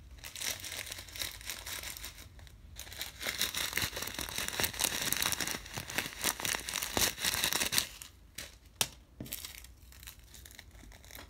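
Small plastic packets of slime add-ins (foam beads, glitter) crinkling and rustling as they are handled and pulled at, a dense crackle that runs for most of the first eight seconds, then dies down to a few sharp clicks.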